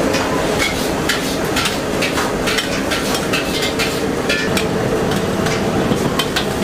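Busy stall kitchen: steady sizzling of frying with frequent sharp clinks and clanks of metal utensils against pans.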